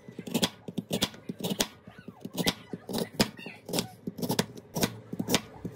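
Kitchen knife slicing a raw lotus root into thin rounds on a plastic cutting board: a crisp chop through the root and tap on the board about twice a second, in a steady rhythm.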